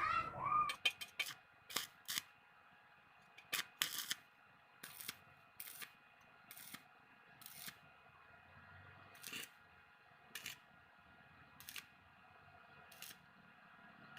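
A series of sharp, dry clicks, close together at first and then spaced about a second apart, over a faint steady hum.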